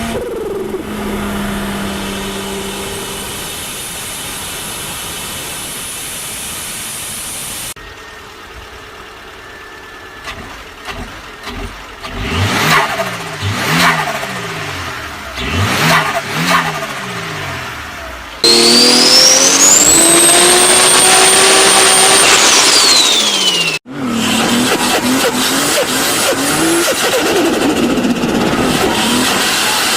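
Several short clips of car engines cut one after another: engines revving in quick blips that rise and fall, then a high whine that climbs with the revs, holds and drops away, the whine of forced induction.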